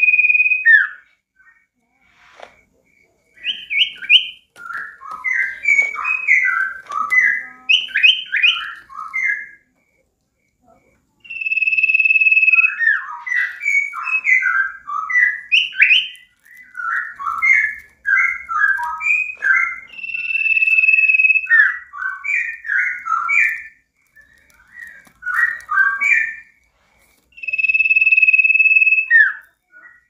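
A caged sirtu (cipoh, the common iora) singing loudly: a long steady whistled note followed by a quick run of short varied chattering notes, the pattern repeated about four times.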